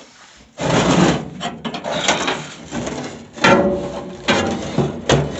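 Rusty metal parts of the cooker being handled: a run of scraping and rattling with sharp knocks and a few short squeaks, starting about half a second in.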